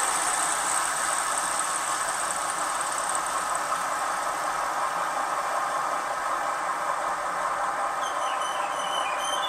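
Sound decoder of a gauge 1 Köf II model shunting locomotive playing its diesel engine sound through the model's speaker, running steadily. About eight seconds in, a squeal sets in over it, the decoder's brake squeal.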